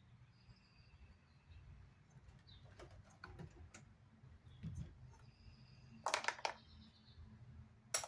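Small parts of a clutch master cylinder rebuild kit handled on a workbench: scattered light clicks, a brief clatter about six seconds in and a sharp click near the end.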